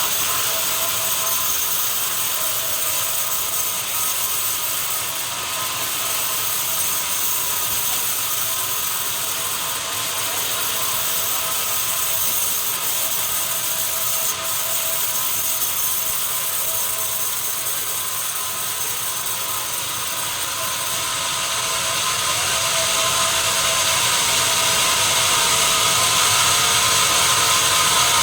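Sawmill saw running through a long log: a steady mechanical din with a constant whine, growing louder about three-quarters of the way through.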